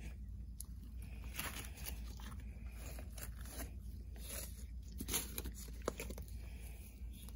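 Slime with clay mixed into it being kneaded and stretched by hand: irregular sticky crackling and tearing, with two louder pops a little past five seconds in and near six seconds in.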